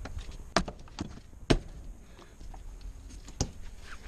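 Metal clamp band being fitted around the flange of a DE pool filter tank, giving a few sharp separate clicks and knocks against the tank, the loudest about a second and a half in.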